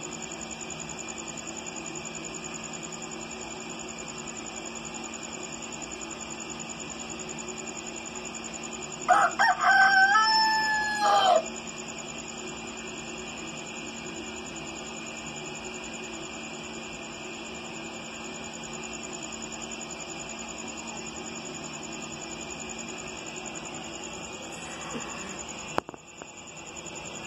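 A rooster crows once, about nine seconds in: one loud call of about two and a half seconds that rises, holds, then drops at the end. A steady hum with a constant high whine runs underneath.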